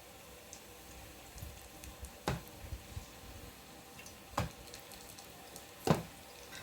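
Three short, sharp knocks of a kitchen utensil while margarine is spread on burger buns, over a faint steady hiss of chicken patties frying in a pan.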